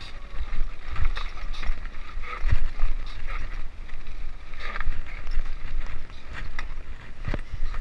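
Mountain bike riding a dirt singletrack trail: tyre noise and the chain and frame rattling with irregular knocks over bumps, over a steady low rumble of wind buffeting the microphone.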